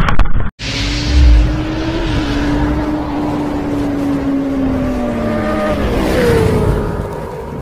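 A motor vehicle's engine runs loudly after a sudden cut, its pitch slowly falling over several seconds and then rising briefly near the end. A heavy low thump comes a little over a second in.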